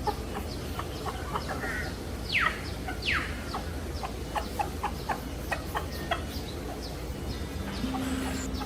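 Birds calling: a run of short, quick falling chirps, two louder ones about two and three seconds in, over a steady low background noise.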